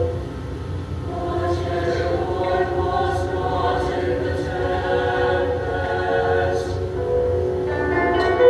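Mixed choir of male and female voices singing together in long held notes.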